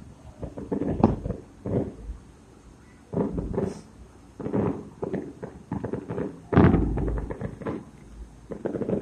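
Consumer fireworks going off in an irregular string of sudden bangs and pops, the heaviest booms about a second in and again past six seconds.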